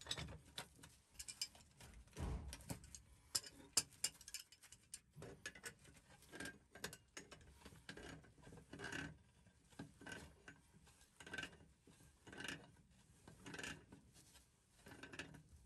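Faint, irregular metal clicks and brief scrapes as pliers and a pipe wrench work on a brass valve fitting.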